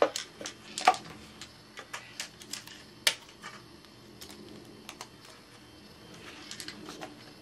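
Hands pressing and fixing tape strips onto a paper-wrapped pouch: irregular light clicks and crinkles, the sharpest near the start, about a second in and about three seconds in.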